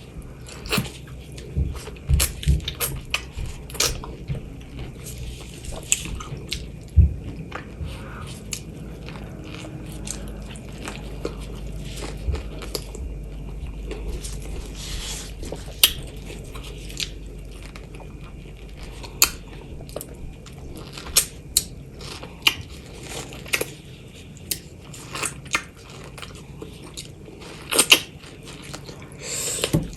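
A person eating seasoned fresh mango close to the microphone, mukbang-style: irregular sharp clicks of biting and chewing, a few of them louder.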